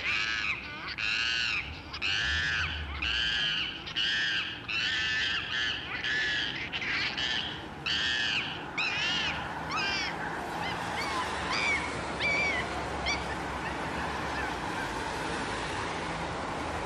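Gray langur calling during a scuffle: a rapid series of high, arched calls, about two a second. About ten seconds in the calls thin out and grow fainter, leaving a steady background hiss.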